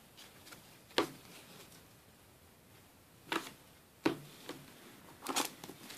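A few soft, separate taps and rustles of trading cards being handled and squared up in the hands, and of a foil booster pack being pulled from its cardboard display box.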